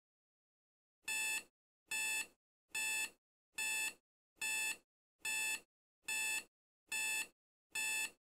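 Electronic alarm clock beeping: nine identical beeps, a little under one a second, starting about a second in.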